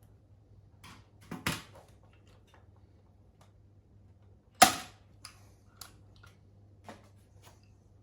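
A hand rivet gun setting small countersunk rivets in a 1.5 mm aluminium mudguard: a sharp snap about a second and a half in, a louder snap about halfway through, and lighter clicks of tool and metal between them.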